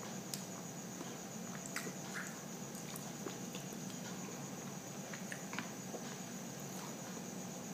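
Eating with bare hands from a plate: scattered short clicks and smacks of chewing and of fingers pressing rice and fish. Under it runs a steady high-pitched ringing and a low hum.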